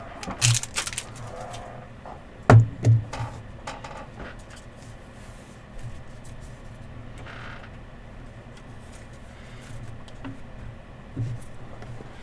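Trading card packs and cards being handled on a table: a few short, sharp knocks and clicks over a low, quiet background.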